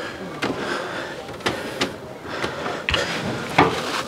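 Footsteps and scuffs of someone climbing a narrow, low stair in a bell tower, with a handful of sharp, irregular knocks and rustling handling noise on the camera.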